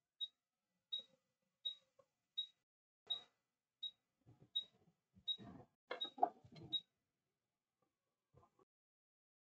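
A string of short, high electronic beeps, about ten of them, evenly spaced a little under a second apart, as the buttons of a hot-air rework station are pressed. Light clattering of tools and parts about halfway through.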